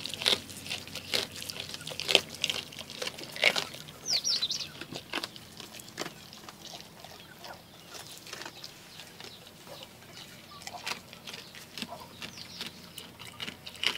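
A goat chewing a small raw fish close to the microphone: a run of sharp, crisp crunches, densest in the first few seconds, then sparser. A bird chirps briefly about four seconds in.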